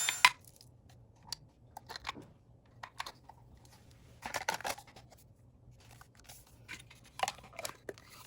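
Boral handheld vacuum cleaner's motor cutting off with a sharp click, then scattered light clicks and rustles of the cleaner being handled.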